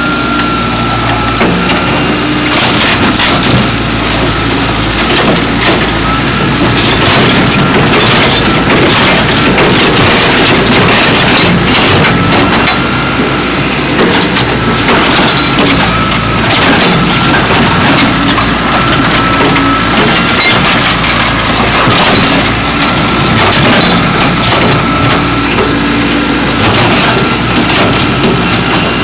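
Backhoe bucket crushing a car body: repeated crunching and cracking of sheet metal over the backhoe's running engine, with a wavering whine.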